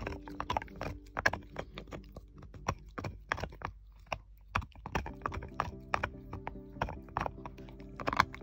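An English Cocker Spaniel gnawing a deer antler chew: irregular sharp clicks and scrapes of teeth grinding on the hard antler, several a second, over background music.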